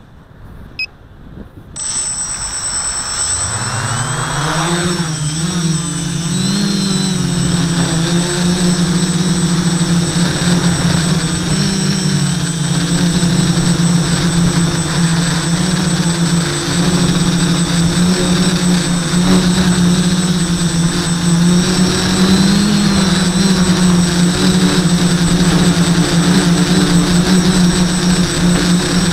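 A quadcopter's four Sunnysky 980kv brushless motors and propellers spool up about two seconds in, the hum rising in pitch as it lifts off, then a steady loud buzzing hum in flight with a thin high whine above it.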